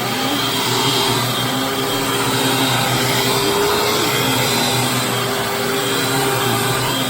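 Hoover WindTunnel Supreme upright vacuum cleaner with the Maytag motor, running steadily: an even motor whine over a rush of air.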